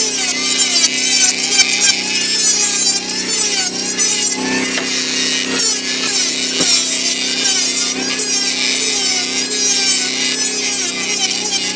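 Modern M2920 electric hand planer running and shaving a wooden beam, a continuous hiss of cutting over the motor's tone, which wavers up and down as the blade bites into the wood.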